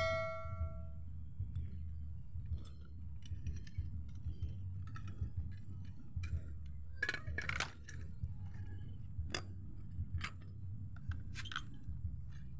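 Metal parts of a rusty kick scooter being handled and taken apart: scattered light clicks, clinks and knocks from the handlebar, steering tube and folding clamp, over a low steady rumble. A bright bell-like chime fades out in the first second.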